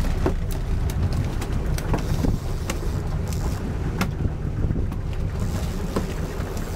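Sport-fishing boat's engine running with a steady low rumble, wind buffeting the microphone, and scattered sharp knocks and clicks on board.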